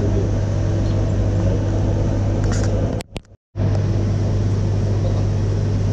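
Keeway KLight 202's single-cylinder engine idling steadily on the dyno while its carburettor is adjusted. The sound cuts out completely for about half a second near the middle.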